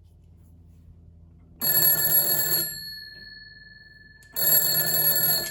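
An early electromechanical telephone bell ringing twice, each ring about a second long. The gongs keep sounding on faintly after each ring, over a faint low hum.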